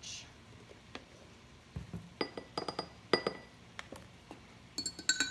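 Light clinks of a measuring spoon against a small glass bowl: a few sharp taps with a short ring about two to three seconds in, and a quicker run of clinks near the end.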